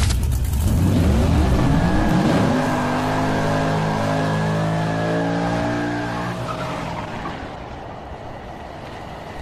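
Car burnout: the engine revs, climbing in pitch over the first couple of seconds and then held high, with tyre squeal from the spinning rear wheel, fading out over the last few seconds.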